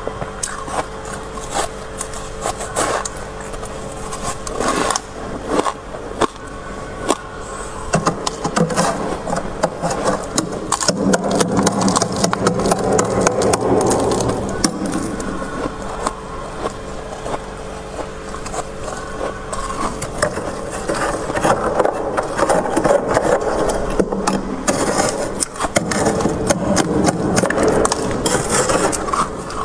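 Metal spoon scraping and crunching through thick, soft frost built up on freezer shelves: a dense run of gritty scraping strokes, busiest in the middle and again near the end.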